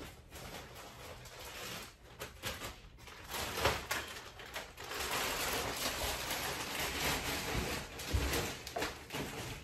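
Clear plastic bags of yarn crinkling and rustling as they are handled, growing louder and busier about three seconds in, with a dull thump near the end.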